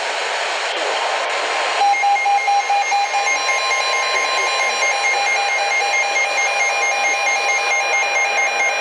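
NOAA Weather Radio broadcast with its steady warning alert tone over radio static, starting about a second in. Weather alert receivers join with electronic alarm beeps, pulsing at first and then steady.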